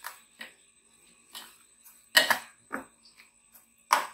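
A spoon scraping and clicking against a bowl while stirring thick semolina (suji) idli batter, in short irregular strokes, the loudest about two seconds in and near the end.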